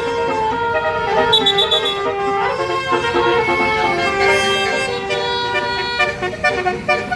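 Bus 'telolet basuri' musical air horn playing a tune, several horn tones stepping from note to note without a break.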